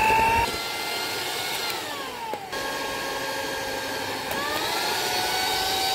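Electric mixer running, its beaters creaming margarine and butter with powdered sugar. The motor whine falls in pitch about two seconds in and rises again a little past four seconds.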